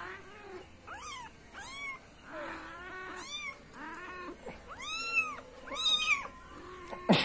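Kitten mewing: a string of short, high, arching mews about once a second, loudest around five seconds in, with a sharp knock near the end.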